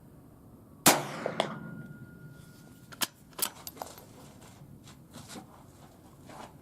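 A single .22 Long Rifle rifle shot with supersonic 40-grain round-nose ammunition, sharp and loud, about a second in, with a short ringing tail. It is followed by a brief steady tone and a series of quieter clicks and clacks.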